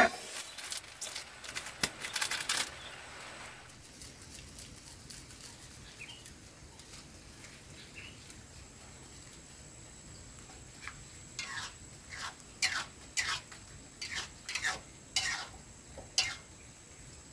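Cooking utensils knocking and clinking against a pot: a spell of light rustling and clicks at the start, a quiet stretch, then about a dozen short, sharp clicks over the last six seconds or so.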